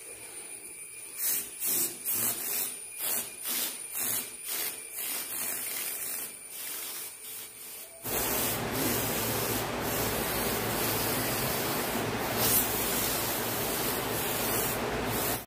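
Homemade airbrush spraying paint: short repeated spurts of hissing spray, then, about eight seconds in, a steady continuous hiss of spray.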